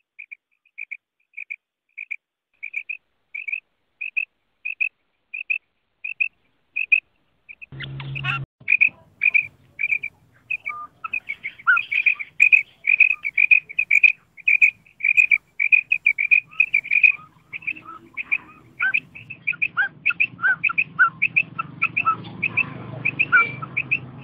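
Female common quail giving the 'kirak' call, the call used to draw male quail into calling. For the first eight seconds it is short, high, clipped notes repeated about twice a second. After that several birds call faster and overlapping, over a low hum and background noise.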